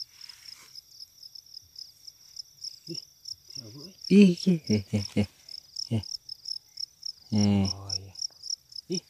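Field crickets chirping at night: a steady, rapid train of high-pitched chirps, about six a second. Low, brief murmured voices come in about halfway through and again near the end.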